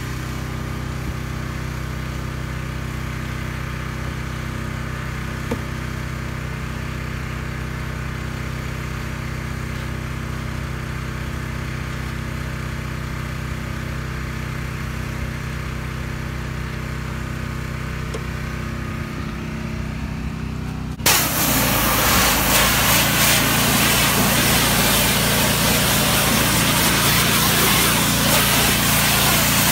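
A pressure washer's small engine runs steadily. About two-thirds of the way through, the spray wand opens and a loud, steady hiss of high-pressure water blasting against a semi truck's hood takes over.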